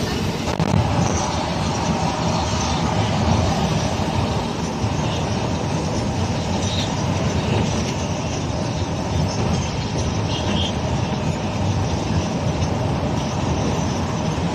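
Steady engine and road noise from inside the cabin of a moving vehicle.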